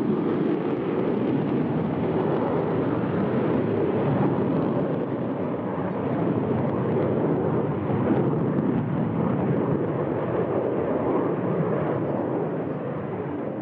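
Concorde's four Olympus 593 turbojet engines as the aircraft climbs away just after takeoff: a loud, steady jet noise.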